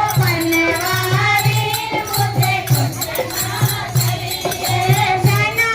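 Women singing a devotional bhajan together, with a steady drum beat of about two strokes a second and a tambourine jingling along.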